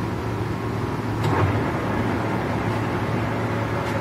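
Clausing Colchester 17-inch engine lathe running, its headstock gearing humming steadily. A clunk about a second in as the speed selector is shifted, after which the lathe runs a little louder at the new speed.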